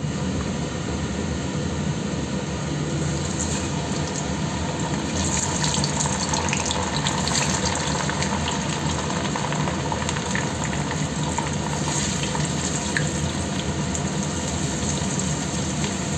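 Hot oil in a small stainless pot sizzling and crackling as cornstarch-dusted green chillies stuffed with minced fish deep-fry. The sizzle grows louder a few seconds in, over a steady low hum.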